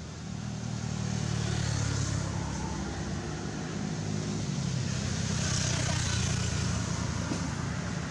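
A motor vehicle's engine running steadily as a low hum, growing louder about half a second in and then holding.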